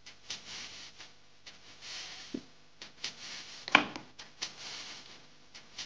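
Handling sounds of a small skincare squeeze tube and fingers at a vanity: soft rustles and light taps and clicks, with one sharper click a little under four seconds in.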